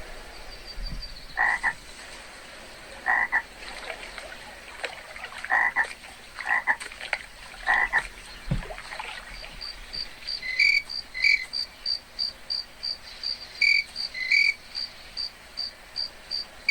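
Frogs croaking, five short separate calls in the first half. From about halfway in, a regular high chirping about twice a second, like insects, with a few short two-note chirps over it.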